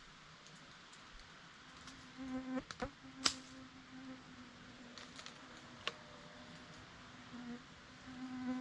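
A flying insect buzzing close by, a steady hum that swells about two seconds in and again near the end, with a few sharp clicks or knocks, the loudest about three seconds in.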